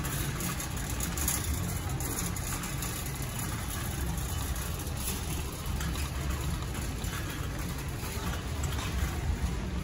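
Shopping cart wheels rolling over a concrete floor, giving a steady low rumble, under the general hum of a large warehouse store.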